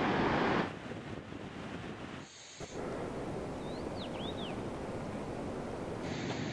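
Steady rushing outdoor noise that shifts abruptly in level a few times. About four seconds in, one short bird call of a few quick sweeping chirps.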